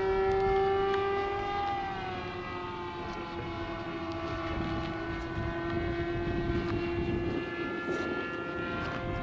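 Small single-cylinder combustion engine of a radio-controlled model airplane buzzing steadily overhead in one high, even drone. Its pitch drops a little about two seconds in and then holds.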